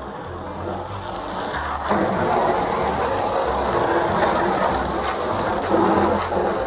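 Jet of water from a garden hose spraying into an empty plastic tub, a steady hiss and spatter of water on plastic as the tub is rinsed out. It gets louder about two seconds in.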